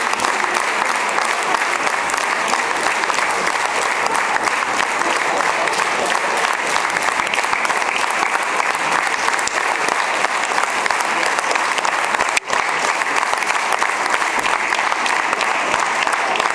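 A large theatre audience applauding steadily, a dense, unbroken clapping with one momentary dropout about twelve seconds in.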